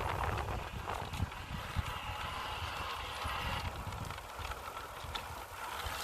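Bicycle being ridden along a trail: tyre noise and small rattles and clicks over the bumps, with wind rumbling on the microphone.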